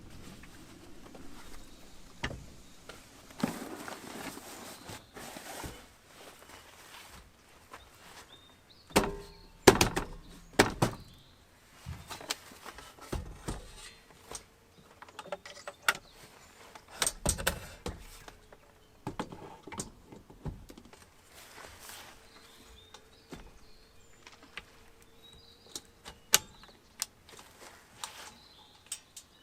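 Irregular knocks, clunks and clicks of objects being handled and set down, the loudest about ten seconds in.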